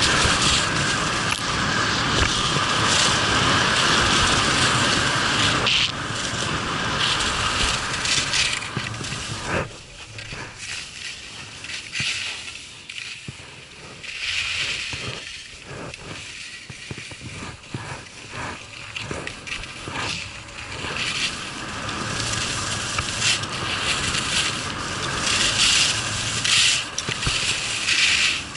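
Skis scraping and hissing over hard-packed piste snow during a downhill run, with irregular bursts as the edges bite in turns. Louder at first, quieter through the middle, and louder again near the end.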